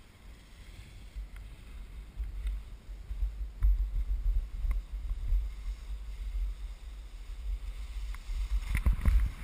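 Wind buffeting the camera microphone while skiing fast downhill: a low rumble that grows louder about three and a half seconds in, with a few faint clicks.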